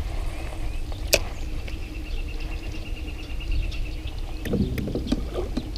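Wind rumbling on the microphone in an open boat, with one sharp click about a second in and a rapid, even high trill from about two to four seconds. Near the end come rattling clicks from handling the spinning rod and reel during a jerkbait retrieve.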